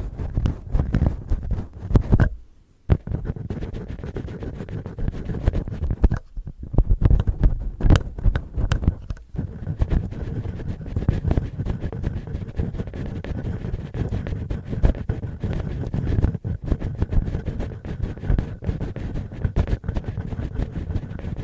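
Fingertips and fingernails scratching and rubbing right on a binaural microphone's ear in ASMR finger ear-cleaning: a close, dense scratching with many small clicks and a heavy low rumble from the contact. It breaks off briefly about two seconds in and again about six seconds in.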